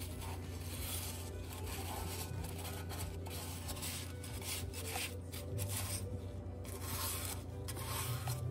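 Paper towel rubbing and wiping across the ridged nonstick plate of an electric grill, a scratchy rubbing in uneven repeated strokes.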